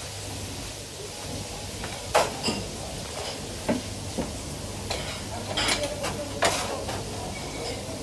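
Thin-sliced calf liver deep-frying in a large pan of oil, sizzling steadily. Metal utensils clink and knock against the pan and trays several times from about two seconds in.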